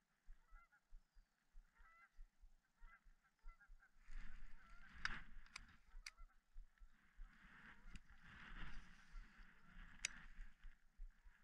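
Faint, short, repeated bird calls, like distant honking. From about four seconds in, a steady rustle with a few sharp clicks from a baitcasting reel being handled.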